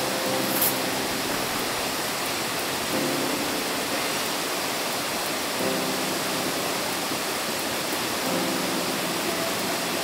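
A steady rush of flowing stream water, with soft background music chords that come in every few seconds.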